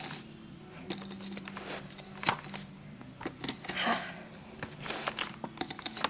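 Plastic parts of a Shark vacuum cleaner being handled: scattered clicks, taps and short rustles, with a sharp click about two seconds in and a longer rustle near four seconds, over a faint steady hum.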